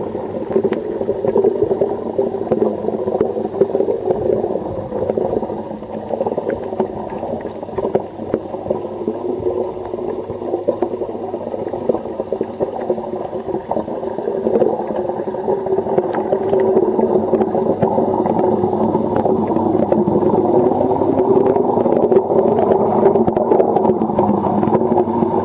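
Water pouring into a pond and churning with bubbles, heard under water through a submerged camcorder's microphone: a steady, muffled rushing and gurgling that grows louder in the second half.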